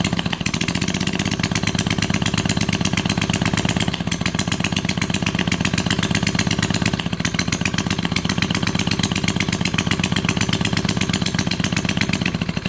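196 cc single-cylinder small petrol engine running steadily at a constant speed, with a fast, even firing beat.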